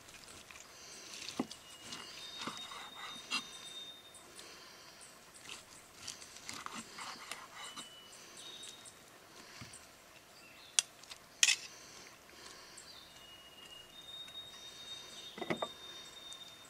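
A carving knife and fork slicing smoked pork shoulder on a wooden cutting board: soft scraping with small clicks, and two sharp clicks of metal on the board a little after the middle. In the background a bird whistles long thin high notes twice, each a lower note stepping up to a higher one.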